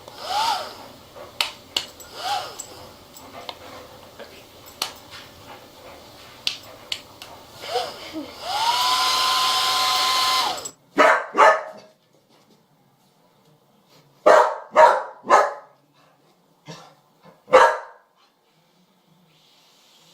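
A dog whining and yelping in short rising-and-falling cries, then a hair dryer blowing steadily for about two seconds. After it stops, a dog barks about six times in short bursts, some in quick pairs.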